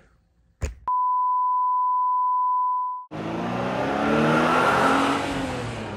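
A steady electronic beep lasting about two seconds that cuts off sharply, followed by a loud car engine revving, swelling to a peak and easing off.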